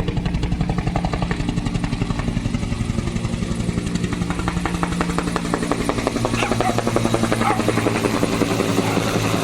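Firefighting helicopter flying low overhead: a steady, rapid beat of rotor blades over a constant engine hum.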